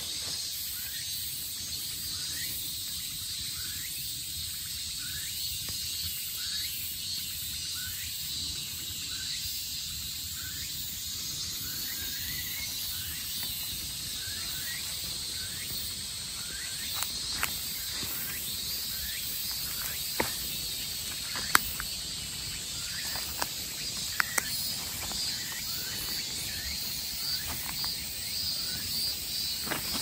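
Woodland insects chirring with a steady high buzz, with short rising chirps repeating through it. In the second half a few sharp clicks stand out.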